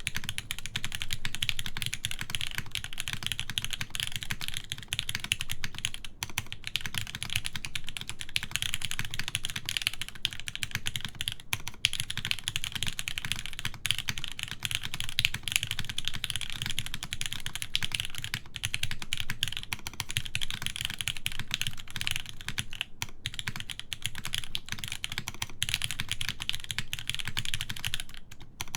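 Continuous fast typing on a mechanical keyboard with Gateron Oil King linear switches, GMK keycaps and a full aluminium plate in a top-mount case: a steady stream of keystrokes with a few short pauses.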